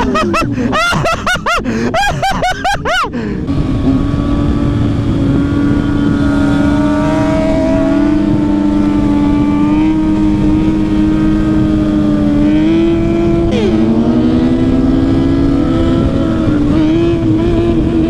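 Motorcycle engine running at steady freeway cruising speed, with wind and road noise, heard from on board the bike. In the first three seconds there is a rapid warbling sound that rises and falls about three times a second. About thirteen seconds in, the engine's pitch rises briefly.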